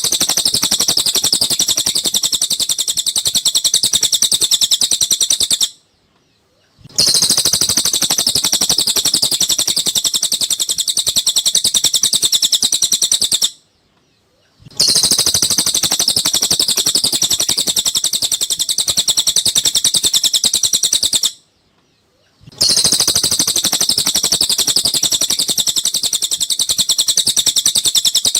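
Recorded song of a cililin bird played on a loop as masteran training audio: dense, rapid, high-pitched chirping phrases about six and a half seconds long, each cut off by a pause of about a second before the same phrase repeats.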